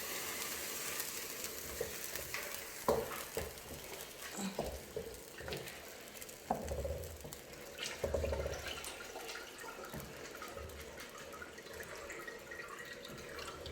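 A pot of tomato-based jollof sizzles with a steady frying hiss, while a spoon stirs it and now and then knocks and scrapes against the pot.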